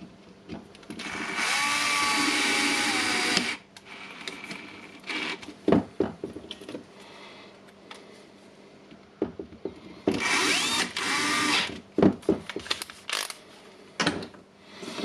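A small power-tool motor, a drill or driver, runs in two bursts of about two seconds each, the second spinning up with a rising whine. Light clicks and knocks of parts being handled come between the runs.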